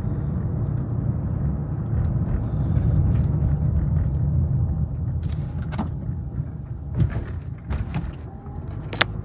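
Car driving slowly, its engine and tyres making a steady low rumble heard from inside the cabin, with a few sharp clicks in the second half.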